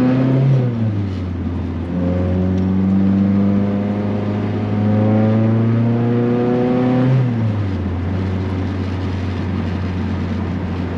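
G23BK Honda H-series four-cylinder engine pulling the car away under load with a loud exhaust. The revs climb, then drop at a gear change less than a second in. They climb steadily again for about five seconds, drop at the next shift around seven and a half seconds, and then hold steady.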